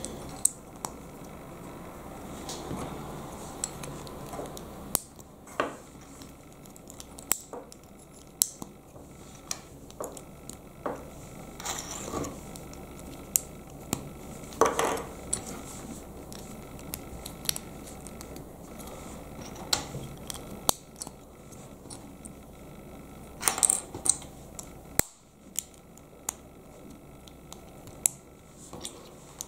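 LEGO plastic bricks clicking and snapping as they are pressed together and handled by fingers: irregular sharp clicks, a few louder than the rest, over a steady low hum.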